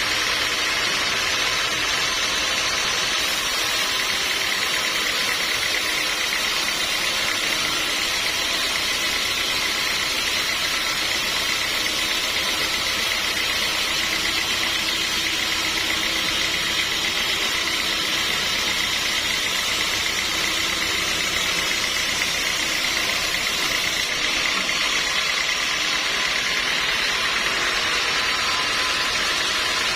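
Sawmill machinery running steadily: a constant, even mechanical noise that does not change for the whole stretch.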